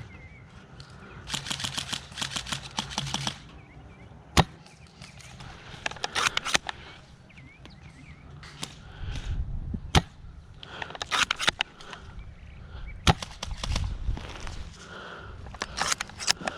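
Airsoft guns firing: a rapid string of shots for about two seconds near the start, then single sharp shots and short volleys spread through the rest.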